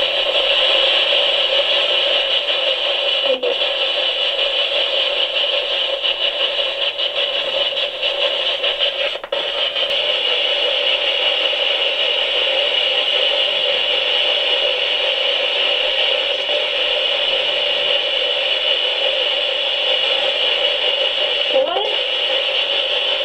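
Spirit box radio scanner putting out steady, loud radio static through its speaker, with a few brief breaks in the noise.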